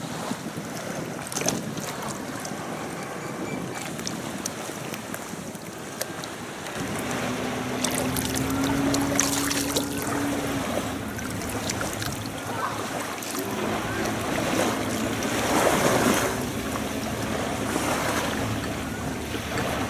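Wind buffeting the microphone over waves washing on the shore. From about a third of the way in, a steady low engine hum, like a passing motorboat, runs underneath.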